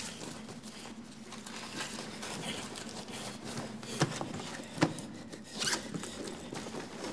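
Rustling and handling of a cloth holdall and a briefcase, with a few sharp clicks about four and five seconds in.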